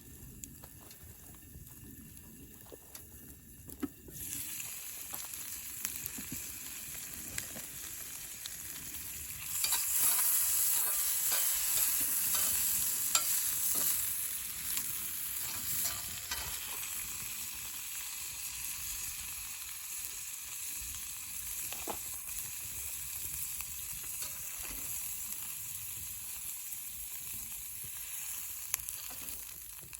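Food frying in a hot pan over the campfire. The sizzle starts suddenly about four seconds in and is loudest soon after ten seconds, then settles into a steady sizzle with scattered small pops.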